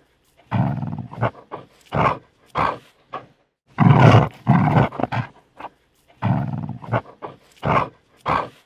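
Dog snarling defensively in repeated loud bursts: longer snarls of about a second broken by short gaps, with shorter snaps in between.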